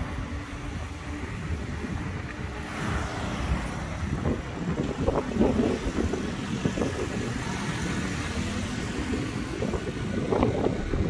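A car driving past, its tyre hiss swelling and falling away about three seconds in, over a ragged low rumble of wind on the microphone.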